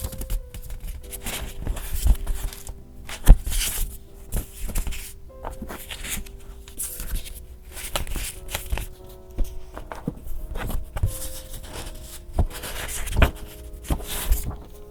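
Paper and craft materials being handled on a desk while decorating a journal: rustling, crinkling and light taps, with one sharper knock about three seconds in. Soft background music with held notes plays underneath.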